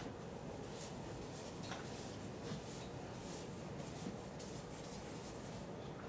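Felt chalkboard eraser wiping chalk off a blackboard in a series of faint, short swishing strokes.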